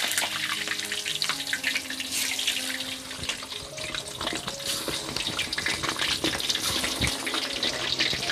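White tofu frying in hot cooking oil: a steady sizzle with frequent crackles and spatters.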